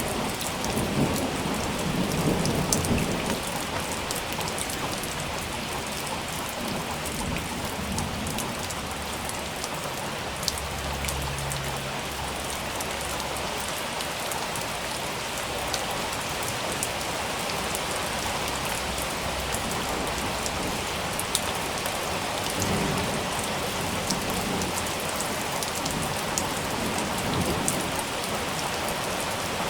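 Steady rain falling, a dense even hiss with fine droplet ticks. Low rolls of thunder rumble in the first few seconds and again in the last several seconds.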